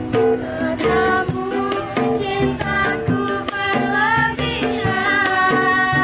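Street buskers' music: a ukulele strummed over a hand-slapped PVC-pipe drum, with young women's voices singing in from about a second in.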